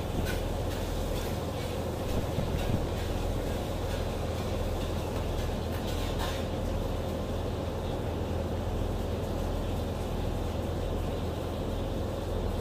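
Steady low drone of a ship's engines and machinery, with a light clink of a metal spoon about six seconds in.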